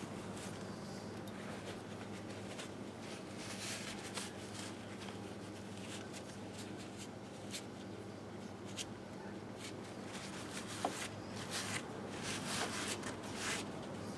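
Shop rag rubbing and wiping grime off a 1958 Harley-Davidson Sportster's aluminium crankcase in short scratchy strokes, with small clicks that grow sharper in the second half, over a steady low hum.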